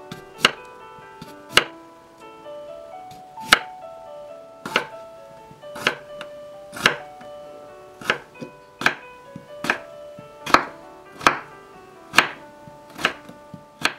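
Knife slicing red potatoes into strips on a wooden cutting board, each cut ending in a sharp knock on the board, about one a second, over light background music.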